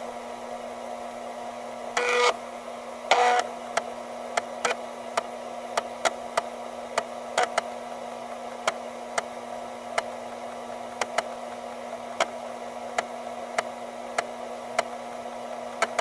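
Floppy drive running, its motor humming steadily while the read head steps with sharp clicks about twice a second. Twice, near two and three seconds in, the head makes a short buzzing seek.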